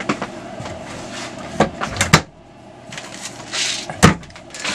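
Several sharp knocks and clicks of a kitchen container being handled and opened, with a brief hissing rustle about three and a half seconds in.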